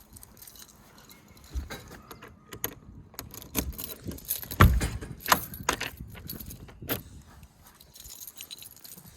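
Metallic jangling and clicking from objects being handled, with scattered sharp knocks; the loudest is a thump about halfway through.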